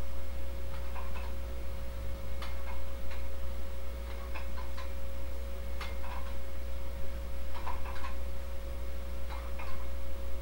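Light clicks from a dumbbell during one-arm biceps curls, usually two per repetition, at about one rep every one and a half to two seconds. A steady low hum runs underneath.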